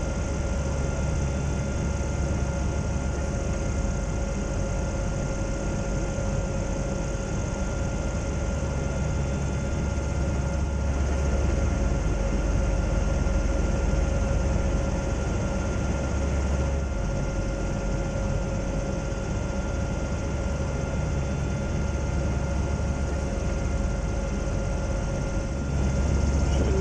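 Steady drone of a Zeppelin NT airship's propeller engines heard inside the passenger gondola: a constant low hum with two steady whining tones above it, the low hum swelling slightly midway and again near the end.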